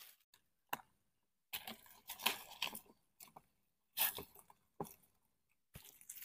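Handling noise: irregular short bursts of scraping and rustling with a few sharp clicks, separated by gaps of dead silence.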